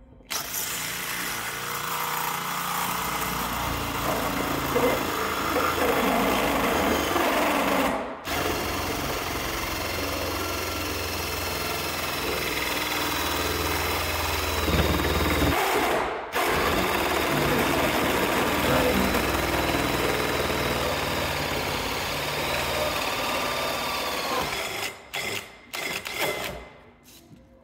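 Makita cordless drill with a hole saw cutting through a van's sheet-metal body panel, running steadily and stopping briefly twice, then starting and stopping in a few short spurts near the end.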